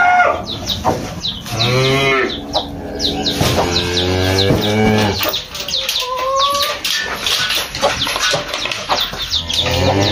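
Cattle mooing, several long low calls a few seconds apart, one higher call about six seconds in. The cattle are calling for their feed.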